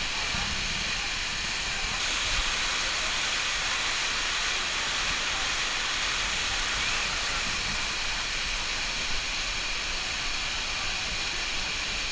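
Man-made waterfalls pouring down artificial volcano rockwork, a steady rushing hiss of falling water.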